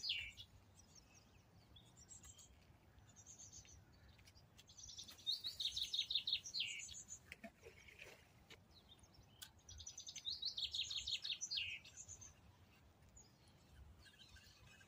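A songbird singing: two rapid trilled phrases about five seconds apart, each lasting a couple of seconds and dropping in pitch at the end, with fainter short high notes between them.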